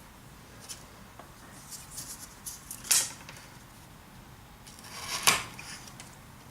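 Small balsa-wood beams being handled and set against a model trestle bent on a workbench: light rustling and tapping, with two sharper clicks, about three seconds and about five seconds in.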